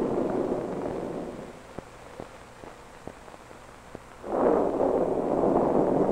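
Wind sound effect blowing hard. It dies down about a second and a half in, leaving a handful of sharp ticks about two a second, then rushes back in loudly near the end.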